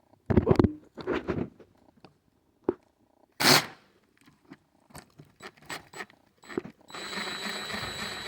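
Knocks and handling clatter of a tool against the chainsaw, then a cordless power driver runs steadily for about three seconds near the end with a thin high whine, backing out a Torx screw.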